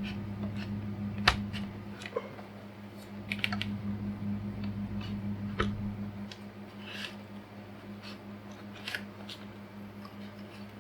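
Handling noise from a power cable being wiped with a soapy wet wipe and worked into a rubber grommet: scattered rustles and small clicks, with a sharper click about a second in and another near the middle. Under it runs the steady hum of an electric fan.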